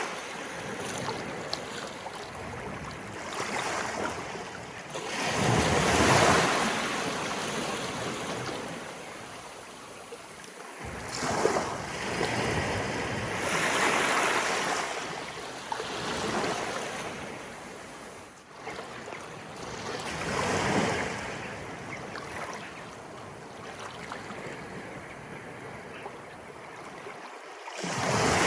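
Small sea waves of an incoming tide washing in and breaking, each swell rising and falling every several seconds, with water splashing and flowing between them.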